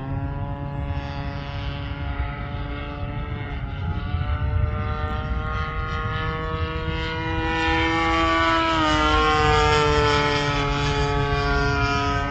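The single-cylinder two-stroke gasoline engine (DLE 20cc) of a radio-controlled model plane, running in flight. It grows louder as the plane comes overhead, with a small drop in pitch about nine seconds in.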